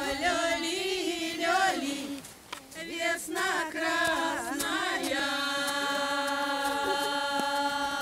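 A group of women singing a Russian spring-calling folk song (vesnyanka), unaccompanied and in unison. The melody wavers and breaks off briefly about two seconds in, then from about five seconds settles into one long held note.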